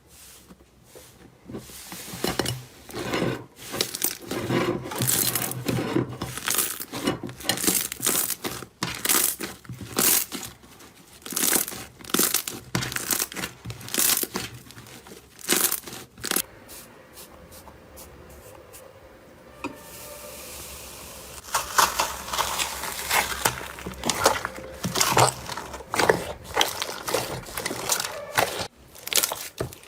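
Slime being squeezed, poked and stretched by hand, giving quick irregular crackles and pops. There is a quieter, softer stretch a little past halfway before the crackling picks up again.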